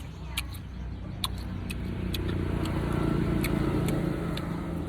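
A motor vehicle's engine hums steadily, growing louder from about two seconds in and easing off near the end, with a few sharp clicks over it.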